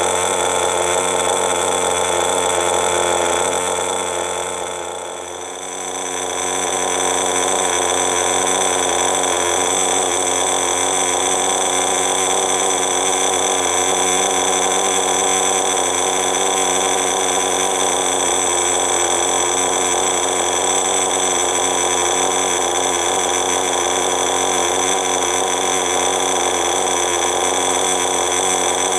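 Veco .21 two-stroke glow-fuel engine of a vintage RC buggy running steadily at a constant speed, its level dipping briefly about five seconds in.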